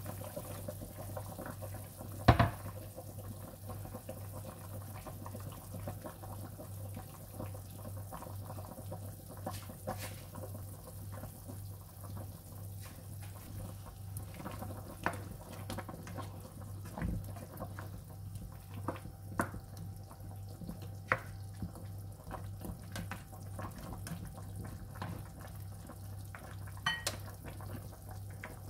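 Chicken tinola broth bubbling in an open pan over a steady low hum. There is a sharp knock about two seconds in, and scattered light clinks against the pan follow.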